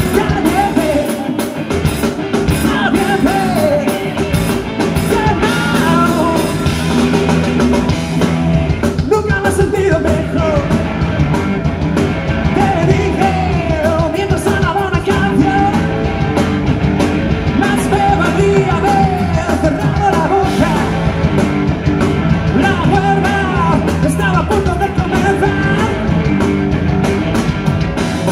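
A rock band playing live through a concert PA, with a lead singer singing over electric guitars and bass.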